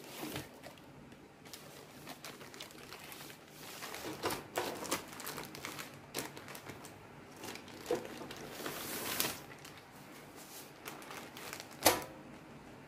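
Clear plastic wrapping crinkling and rustling in irregular bursts as a bathroom scale is slid out of its bag, with one sharp knock near the end.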